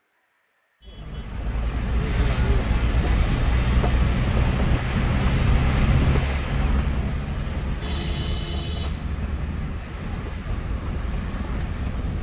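Motor vehicle's engine and road rumble, steady and loud, starting abruptly just under a second in. About eight seconds in, a brief high tone sounds over it for about a second.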